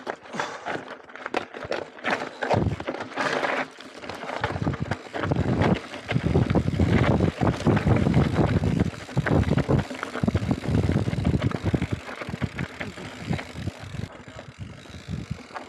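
Mountain bike riding down a rough gravel trail: tyres crunching over loose stones and the bike rattling over the bumps, with a heavy low rumble that is loudest in the middle stretch.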